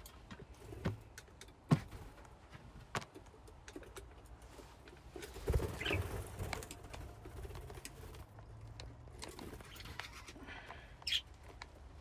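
Budgies in a colony cage chirping now and then, with sharp clicks and taps in between. The calls are busiest about halfway through and come again near the end.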